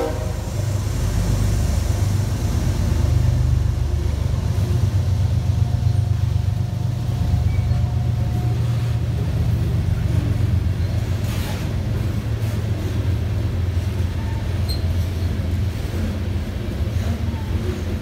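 Freight train passing close by, hauled by Kansas City Southern diesel locomotives: a steady low rumble of engines and rolling wheels that carries on as covered hopper cars roll past.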